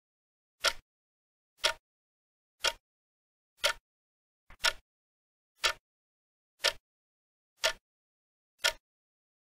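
Clock-tick countdown sound effect ticking once a second, nine short, sharp ticks with nothing else between them.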